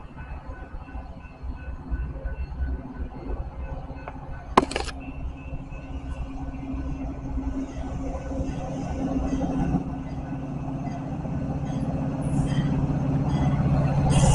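Metra diesel locomotive approaching, its engine drone and the train's rumble growing steadily louder as it nears. There is a single sharp click about four and a half seconds in.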